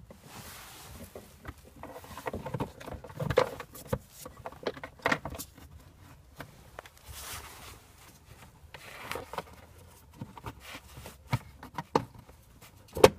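Plastic scraping, rubbing and clicking as a cabin air filter cassette is slid and pushed into its housing behind the glovebox, with a sharp click near the end.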